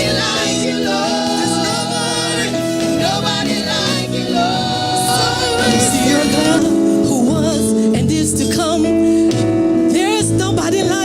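Gospel worship music: voices singing with vibrato over steady instrumental accompaniment.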